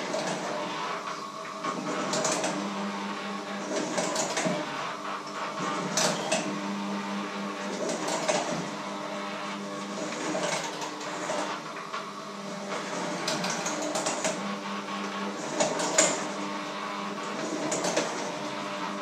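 Handheld electric mixer running in a metal bowl: its motor hums in stretches, with sharp clatters and knocks of the beaters and tools against the bowl.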